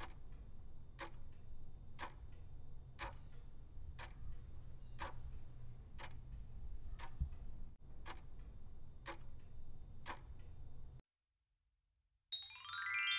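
Countdown clock sound effect ticking about once a second, ten ticks over a faint low hum, then a quick rising run of chime notes as the answer is revealed.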